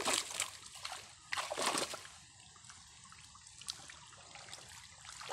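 Shallow pond water splashing and sloshing as a straw broom is swept through it: two loud splashes in the first two seconds, then quieter trickling and dripping.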